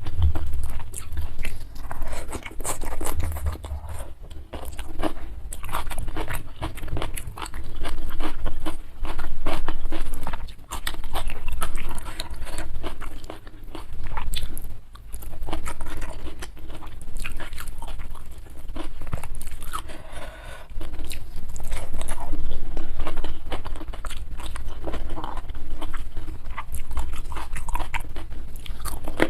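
Close-miked chewing and crunching of food, with crisp bites and wet mouth sounds coming in uneven bursts every second or two.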